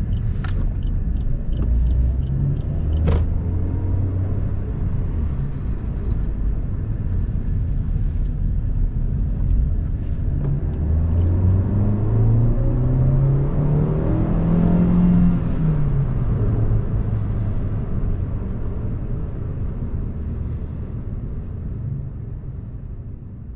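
Suzuki Ignis 1.2-litre inline four-cylinder petrol engine and road rumble heard from inside the cabin while driving. The engine note climbs for several seconds as the car accelerates, peaks about two-thirds of the way through, then drops back as it eases off, and the sound fades out near the end. Two sharp clicks come in the first few seconds.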